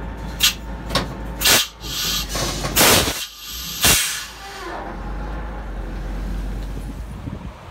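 Compressed air hissing in about five short bursts from a semi-trailer's air brake system, the longest about two and a half seconds in, over a steady low engine rumble that carries on alone afterwards.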